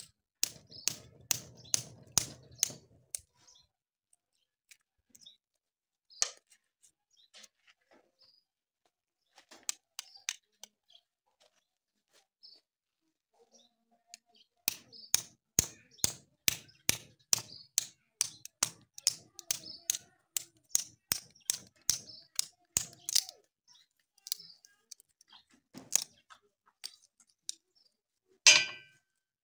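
Knife cutting into the wooden splint screwed onto a cow's hoof: runs of sharp clicks about two a second, with a louder crack near the end.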